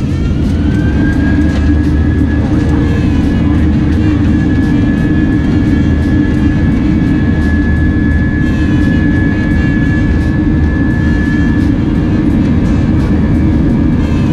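Airliner's jet engines spooling up to takeoff thrust, heard from the cabin: a whine rises over the first second and then holds steady over a loud, heavy rumble as the plane rolls down the runway, with frequent short knocks and rattles through the cabin.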